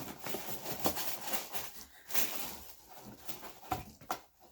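Rustling and light knocks of shoe boxes and packing paper being handled, irregular short crackles and taps.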